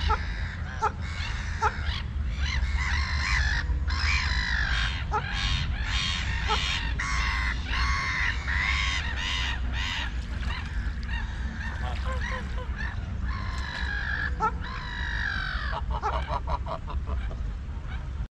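Domestic geese honking and gabbling over and over in quick series, over a steady low rumble.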